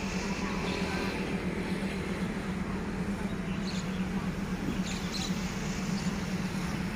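A steady low hum under even outdoor background noise, with a few faint short high-pitched sounds in the middle and near the end.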